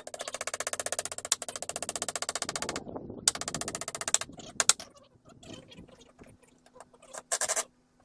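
Impact driver driving screws: a rapid rattling hammering in bursts, a long one of nearly three seconds, a shorter one, then two brief bursts near the end.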